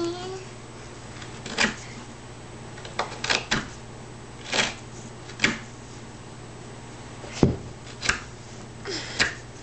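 Hand carving tool cutting into a wooden board: about ten short, irregularly spaced cuts as shavings are taken off, one of them a sharper knock about three-quarters of the way through.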